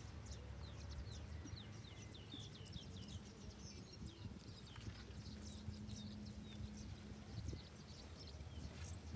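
Faint outdoor ambience: small birds chirping in quick, short high notes over a low rumble.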